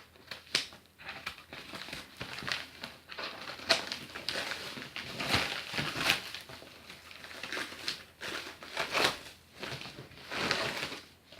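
A delivery packet being torn open and its packaging handled and crumpled: irregular rustling and tearing strokes.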